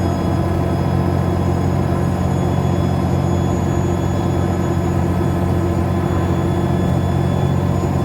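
Alexander Dennis Enviro400 double-decker bus running steadily: a low engine drone with a high turbo whistle and a whining, groaning differential. The sound holds even without gear changes.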